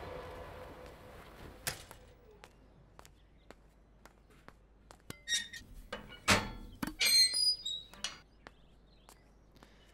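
A fading music tail in the first second, then scattered light clicks and a few metal knocks with high squeaks in the middle: an iron garden gate being unlatched and swung open by hand.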